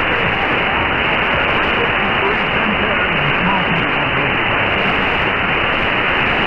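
Shortwave receiver audio on 6160 kHz in synchronous AM: steady hiss and static, cut off sharply above about 3 kHz by the receiver's filter, with a weak station's voice faintly buried in the noise.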